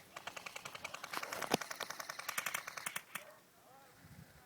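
Airsoft gun firing on full auto: a rapid, even string of sharp clicking shots for about three seconds, with one louder crack partway through, then it stops.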